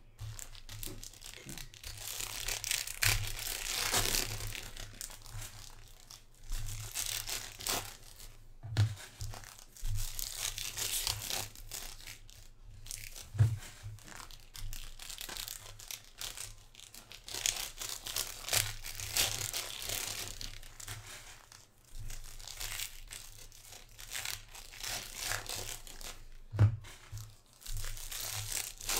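Foil trading-card pack wrappers crinkling and being torn open by hand, in repeated bursts of rustling, with a few soft knocks as packs are handled.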